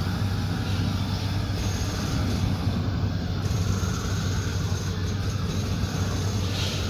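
Hand-held LPG gas torch burning steadily, a constant rumbling hiss from the flame as it heats a bitumen waterproofing membrane on a concrete wall.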